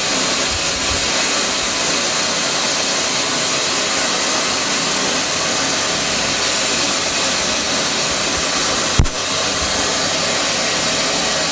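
Steady test-signal hiss played through a 2-inch Audible Physics full-range driver during a frequency-response measurement, strong in the treble and thin in the bass. A single low thump comes about nine seconds in.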